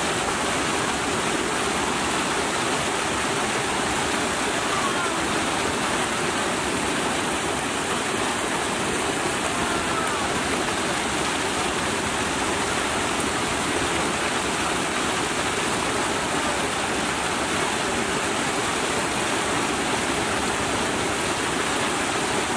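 Water pouring over a small spillway ledge and splashing into the pool below, a steady, unbroken rush.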